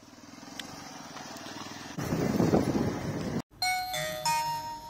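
Motorcycle engine running while riding, with a rapid low pulsing that grows louder about two seconds in. It cuts off abruptly after about three and a half seconds, and a chime-like sound effect of several ringing tones follows.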